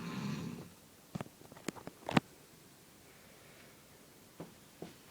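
A person snoring, with one rasping snore trailing off in the first moments. Then come a few sharp clicks, the loudest about two seconds in, and two faint ticks later on.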